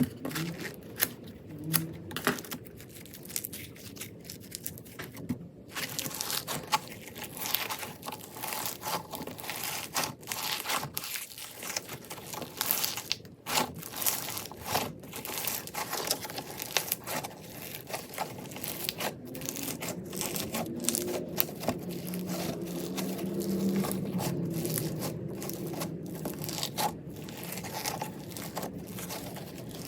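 Slime packed with more crunchy beads than slime, squeezed and pressed by hand, giving a dense, irregular run of crackles and snaps.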